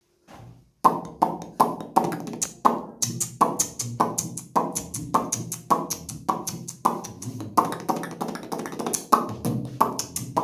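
Beatboxing: a steady mouth-made drum beat of kick, snare and hissing hi-hat sounds over a low bass tone, starting about a second in.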